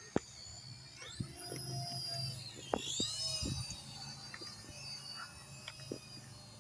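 Toy RC helicopter's small electric motors whining as they spin up, the pitch rising about a second in, dipping near three seconds and climbing again, with a low rotor hum underneath and a few light clicks.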